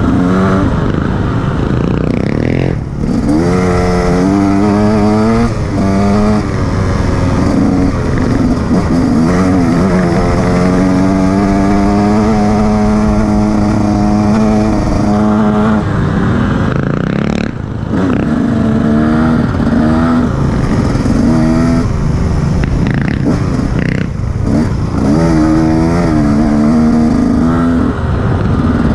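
Enduro motorcycle engine under way off-road, its pitch rising and falling as the rider works the throttle and gears, with a few brief drops when the throttle is closed.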